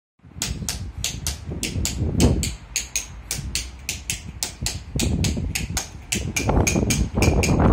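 Hammer tapping a carving chisel, a fast, even series of sharp metallic strikes about four to five a second, getting louder toward the end.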